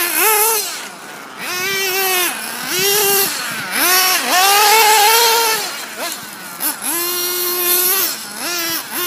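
Small high-revving nitro engine of a Losi 1/8-scale RC buggy being driven hard, its high-pitched note climbing and falling over and over as the throttle is opened and let off.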